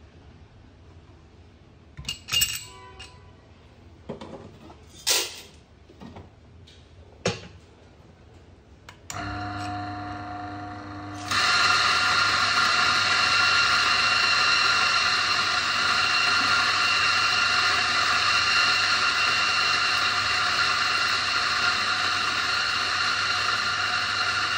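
A few sharp clinks and knocks as a metal portafilter and dosing funnel are handled. About nine seconds in, an electric coffee grinder's motor starts with a steady hum. About two seconds later it begins grinding beans, a loud, steady whirring with several held tones.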